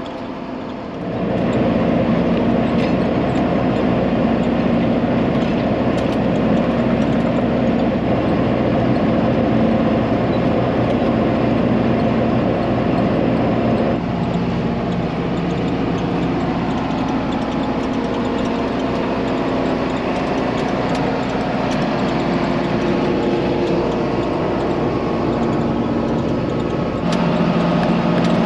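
John Deere 4755 tractor's six-cylinder diesel engine running steadily at working speed. Its tone picks up about a second in and shifts slightly about halfway through and again near the end.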